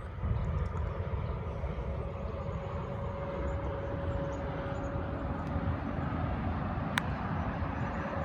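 Wind buffeting the microphone: a steady, uneven low rumble, with a sharp click about seven seconds in.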